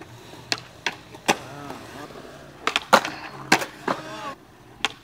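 Skateboard on concrete: a run of about nine sharp clacks, with wheels rolling between them.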